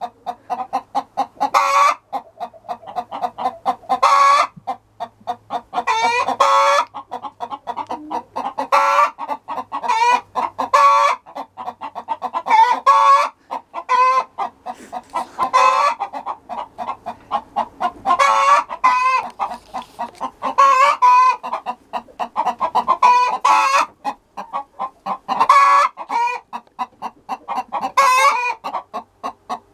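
Chickens clucking in a coop: a steady run of short calls, with a longer drawn-out call every few seconds.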